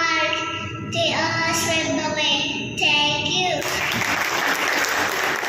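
A young child singing into a microphone, holding long drawn-out notes; about two-thirds of the way through the song ends and the audience applauds.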